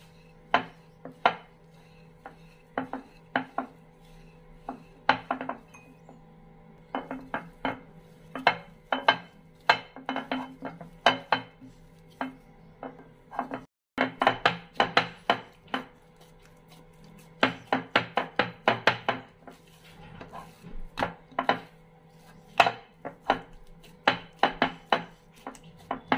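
Hands kneading soft naan dough in a clear bowl: repeated knocks and thuds as the dough is pressed and pushed against the bottom and sides of the bowl, coming in quick irregular clusters.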